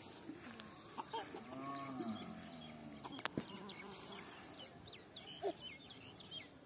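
A chicken clucking, with a run of drawn-out calls about one and a half to two seconds in, and small birds chirping around it. A single sharp click comes a little past three seconds.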